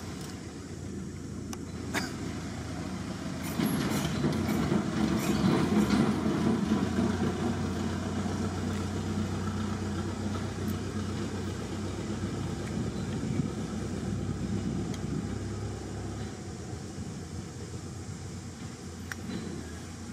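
Low, steady outdoor background rumble that swells for a few seconds about four seconds in and eases off later, with a few faint clicks.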